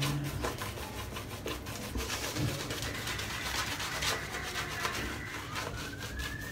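Silvertip badger shaving brush scrubbing lather over a shaved scalp: a steady run of rapid rubbing strokes.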